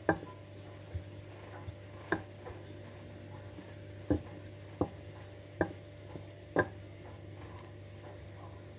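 Kitchen work knocking on a counter: about seven separate knocks and taps at uneven intervals, over a steady low hum.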